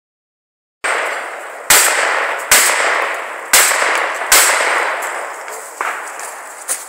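Five shotgun shots fired at steel targets, about a second apart, each with a long fading echo. Two fainter knocks follow near the end.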